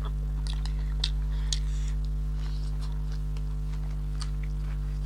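Steady electrical hum, with scattered short clicks and crunches of people chewing food.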